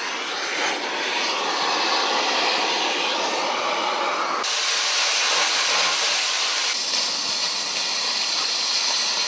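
Oxy-fuel cutting torch hissing steadily as it cuts steel; the hiss grows louder and brighter about four and a half seconds in.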